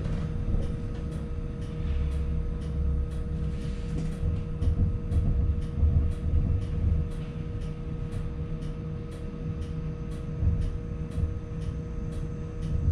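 A New Flyer E40LFR electric trolleybus standing still, its electrical equipment giving a steady hum over a low rumble, with a regular ticking about twice a second.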